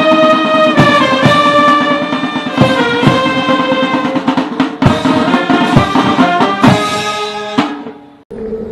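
Music: a brass melody with drums and snare, fading out and stopping near the end.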